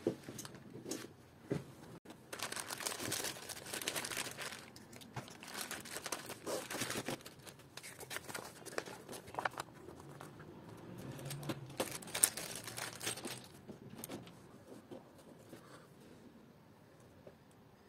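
Crinkling and rustling of a plastic bag and a paper sheet as a robot car chassis kit is unpacked and the protective paper is peeled off its acrylic plate, with light clicks of parts being handled. It dies down over the last few seconds.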